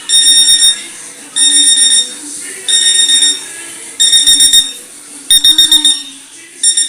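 Alarm clock beeping: six quick bursts of rapid high-pitched beeps, each burst about half a second long, repeating every second and a bit.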